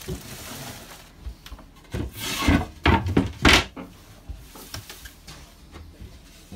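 Wooden floorboards and locker lids in a yacht's cabin being handled and lifted: knocks and scrapes of wood on wood, loudest in a cluster between about two and three and a half seconds in.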